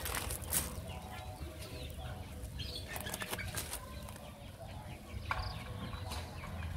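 Puppies scrabbling and pawing in loose sand: a run of short, scratchy rustles and scrapes.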